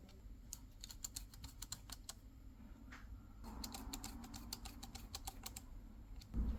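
Rapid, irregular light clicks, several a second, with a low thump near the end.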